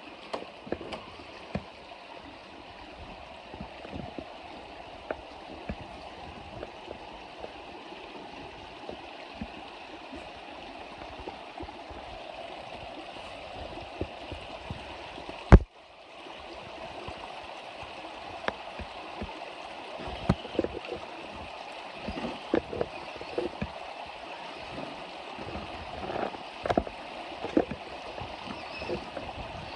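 Creek water running steadily over rocks, with scattered short splashes and clicks, more of them in the second half, and one loud knock about halfway through.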